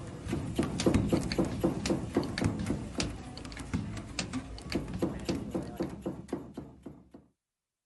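Hand carpet weaving at a loom: rapid, irregular taps and knocks, several a second, growing fainter and stopping about seven seconds in.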